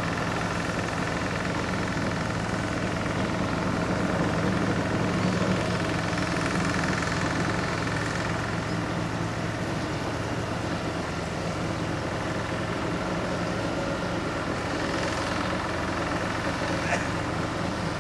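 Steady drone of an idling engine, with several held tones and a faint click near the end.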